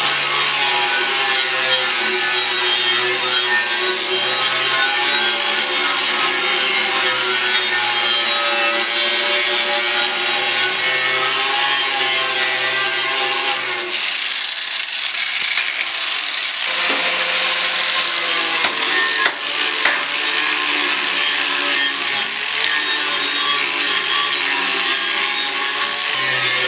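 Power grinder running continuously against steel edges, a dense grinding noise over a steady motor whine, grinding off paint to clean the metal for welding. The grinding eases for a couple of seconds about halfway through, then bites again.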